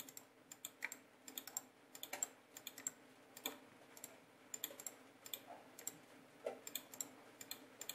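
Faint, irregular light clicks, a few a second, over a faint steady low hum.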